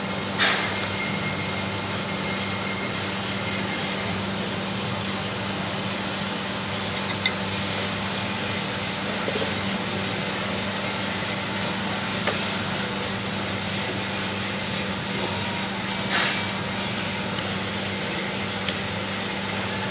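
Steady low machine hum with a handful of short, sharp knocks scattered through, like tools or metal parts being handled.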